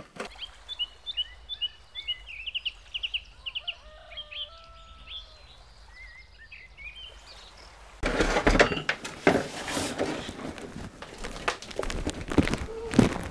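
Birds chirping and whistling: many short calls, some rising or falling, with a few longer whistles. About eight seconds in they cut off and give way to louder knocks, clatter and footsteps as belongings and tool cases are picked up and carried out of a room.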